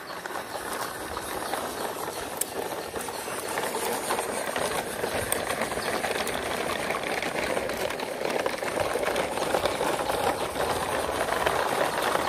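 Radio-controlled toy pickup's small electric motor whirring as it tows a train of plastic toy trucks, their hard plastic wheels rattling and clicking over rough concrete.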